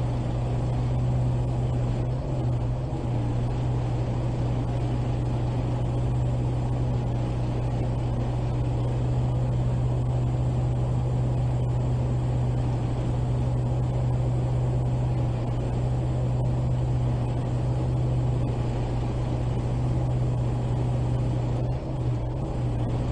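Wrecker crane truck's engine running steadily with a deep, even hum while its boom is worked.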